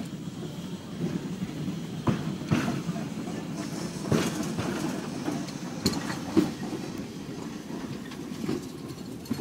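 Street tram running along its rails: a steady low rumble broken by irregular sharp clacks of the wheels on the track, the loudest about six seconds in.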